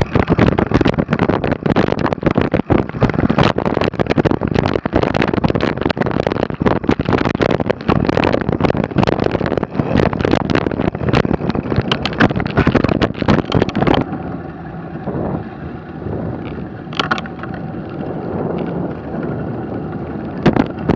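Wind buffeting the microphone and the bike rattling over rough ground on a mountain-bike ride, a loud, jolting rush. About 14 seconds in it suddenly drops to a quieter, duller rush with an occasional knock.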